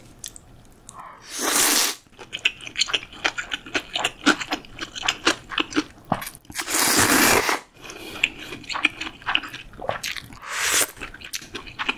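Close-miked slurping and chewing of buckwheat soba noodles in broth. There are three long slurps, about a second in, around seven seconds in and shortly before the end, with soft wet chewing clicks in between.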